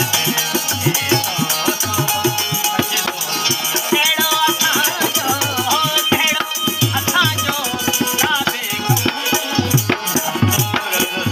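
Instrumental Sindhi folk music in raag Malkauns: a harmonium holds the melody over a fast, steady dholak beat, with a keyed benju (Sindhi banjo) adding quick plucked runs and gliding phrases about four to seven seconds in.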